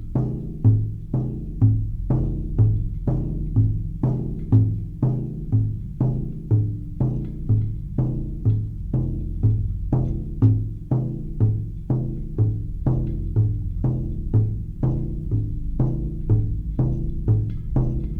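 Meditation music: a low-pitched drum struck in a steady beat, about two strikes a second, each dying away quickly over a continuous low drone.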